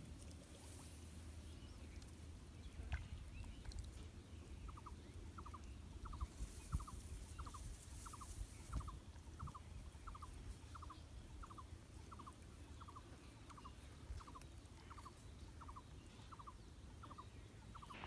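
An animal calling a short rattled note over and over, about three notes every two seconds, starting about five seconds in, over a steady low rumble with a few soft knocks.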